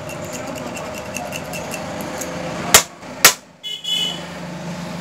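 Two sharp metal knocks about half a second apart, as the parts of a pressure cooker whistle and a small screwdriver are handled, followed by a brief high ringing. Before them comes faint light ticking over a steady background hum.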